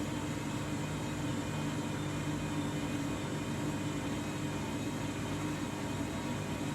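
Washing machine running with a steady, even hum at the end of its main wash, around the short intermediate spin.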